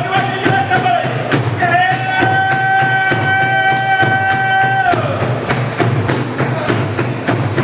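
Tall Rwandan ingoma drums beating a fast, steady rhythm for intore dancing. Over them a voice holds a high note at the start and another long high note for about three seconds, from just under two seconds in until about five seconds in.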